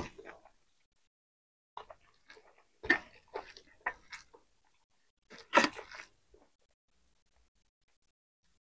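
Close-up chewing and crunching of roasted pork and rice eaten by hand, in several short bursts with quiet gaps between.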